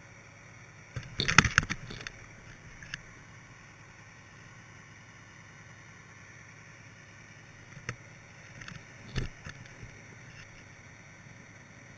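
Underwater knocks and scrapes picked up through a GoPro's waterproof housing as a halibut rig drifts over a rocky seabed: a loud cluster of clattering knocks about a second in, a few single clicks, and another short cluster of knocks about three-quarters of the way through, over a steady low hiss.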